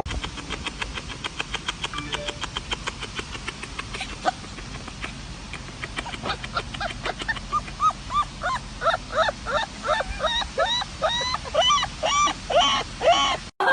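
Young animals' rapid high-pitched squeaky calls, many short rise-and-fall chirps a few per second, becoming louder and more frequent through the second half, over a faint run of quick ticks at first.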